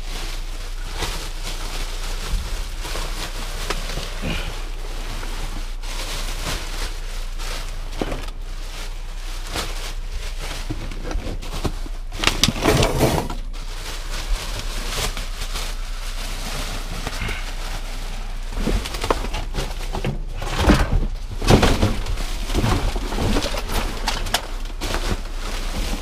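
Plastic garbage bags rustling and crinkling as hands pull them open and dig through them. There are louder bouts of handling about halfway through and again toward the end.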